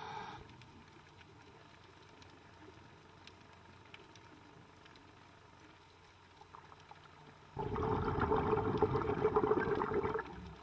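Underwater recording: a faint steady hiss of water, then, about two-thirds of the way in, a loud crackling rush of bubbles lasting about two and a half seconds that stops abruptly, the exhaust bubbles of the filming scuba diver breathing out.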